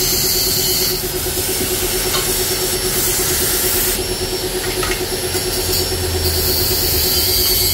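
Gas cutting torch hissing steadily while cutting open a steel motorcycle muffler canister, over a steady hum; the hiss shifts in level a few times as the torch is moved.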